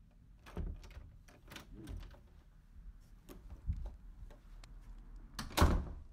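Scattered short knocks and clunks over a low steady rumble, with one louder, longer thud near the end.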